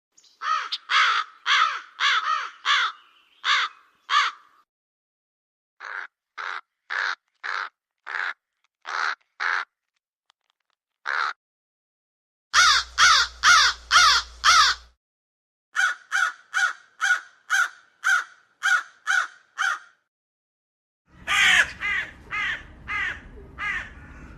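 Crows cawing in a string of separate bouts of short, harsh caws repeated in quick succession, with dead silence between the bouts as between spliced recordings. One fast bout runs about eleven caws in four seconds. Near the end a bout comes with background noise under it.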